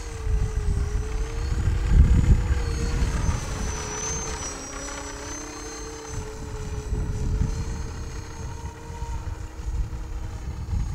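Small motor and propeller of a Magnus-effect RC plane droning in flight, a steady hum with a high whine above it, both wavering slightly in pitch. Underneath, wind buffets the microphone in gusts, loudest about two seconds in.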